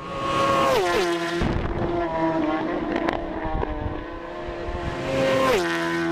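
A motorcycle engine held at high revs, its high steady note dropping sharply in pitch about a second in and again near the end, like gear changes.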